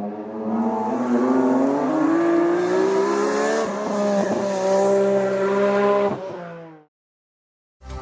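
Historic race car engine accelerating hard, its pitch rising and then stepping a couple of times as it changes gear. It fades out abruptly near the end, followed by a moment of silence and the start of electronic music.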